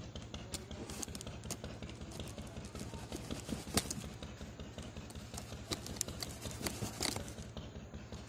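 Small knife slitting the packing tape along the seam of a cardboard box, with irregular clicks and scrapes of the blade on tape and cardboard.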